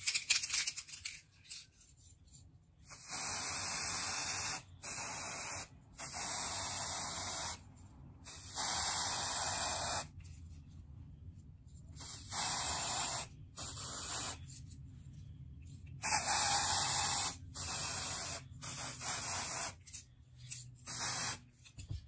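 Aerosol lace tint spray (light warm brown) hissing in about ten short bursts of one to two seconds each as it is sprayed onto a wig's lace, with a few light clicks just before the first burst.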